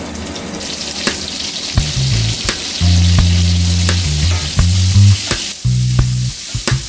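Onion rings sizzling as they stir-fry in hot oil in a stainless steel pan, with metal tongs clicking against the pan as they are tossed. A low hum cuts in and out from about two seconds in.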